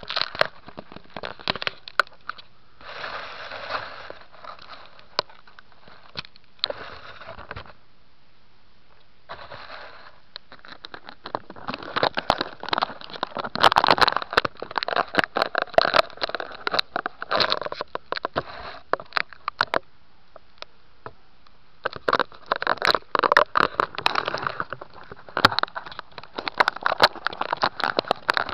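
Crackling, scraping and clicking handling noise on the model plane's onboard camera microphone, coming in irregular spells with quieter gaps.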